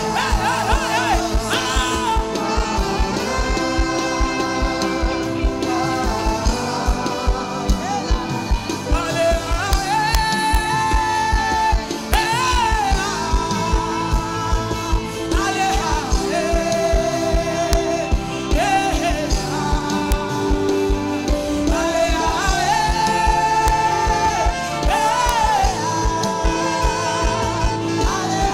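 Live gospel praise music: a group of singers with microphones singing melodic, held lines over a band's sustained chords and a steady drum beat.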